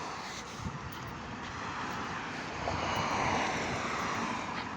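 Steady engine and road noise of a tow truck under way, hauling a broken-down truck, swelling slightly in the middle.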